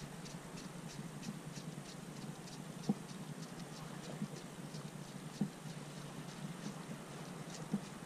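Faint light ticking and pattering, about three or four ticks a second, over a low steady hum, with a few soft knocks. This fits small water slaps against an inflatable kayak's hull.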